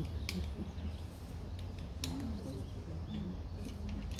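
Outdoor background of distant, indistinct people's voices over a low rumble, with two sharp clicks, one near the start and one about halfway, and a few faint high chirps.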